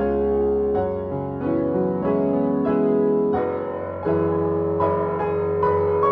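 Piano music, held chords and notes changing about every second.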